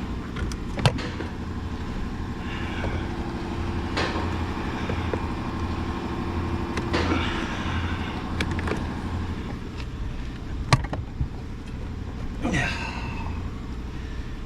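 Plastic dashboard trim being worked loose by hand: scattered sharp clicks and knocks with short stretches of scraping and rustling, the strongest knocks about a second in and near the end, over a steady low hum.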